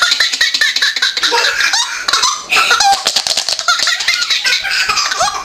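A baby belly-laughing hard in quick, repeated bursts, with a brief pause about two seconds in.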